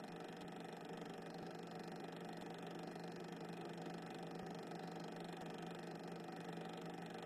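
Steady low hum over faint hiss, unchanging and with no distinct events.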